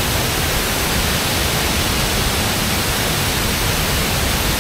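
Large waterfall heard up close: a loud, steady rush of falling water.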